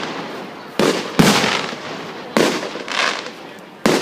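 Aerial firework shells bursting at a display: four sharp bangs about a second apart, each trailing off as it fades.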